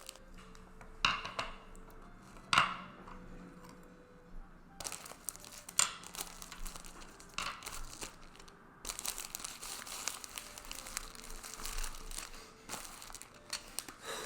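Plastic packaging crinkling and rustling as it is handled, with a few sharp clicks and taps. The crinkling gets denser and more continuous in the second half.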